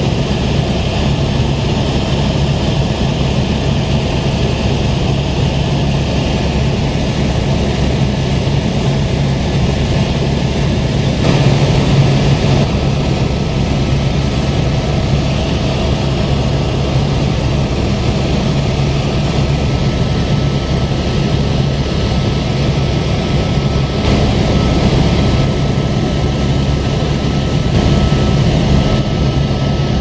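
Steady engine drone of an aircraft heard from on board: a constant low hum under a loud hiss, swelling slightly about twelve seconds in.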